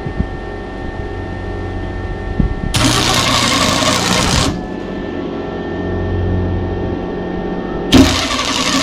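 MIG welder arc crackling in two short tack-weld bursts on thin steel handlebar tubing, about three seconds in and again near the end, over a steady machine hum. The arc's sputter is probably from a bad ground.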